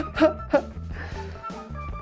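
Background music with a steady low bass line, and two brief voice sounds in the first half-second.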